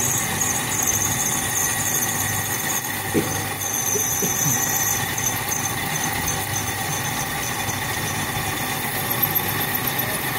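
1940s Sheldon engine lathe running steadily while a parting tool cuts off an aluminium piece, the cut giving a continuous high-pitched squeal over the machine's hum.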